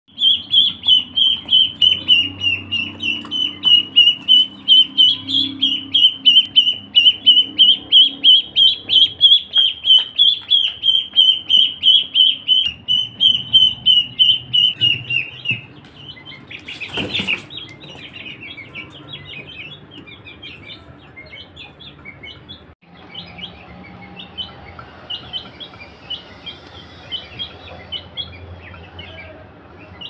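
Chicks peeping: a loud, rapid run of high, even peeps, about three a second, for roughly the first half, then a brief noise and fainter, scattered peeps from several chicks.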